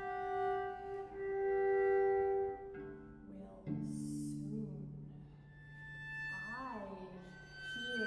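Solo cello bowing sustained notes: a high held note, then a low held note from about three and a half seconds in. A short hiss and sliding vocal sounds from the cellist's voice come over the low note.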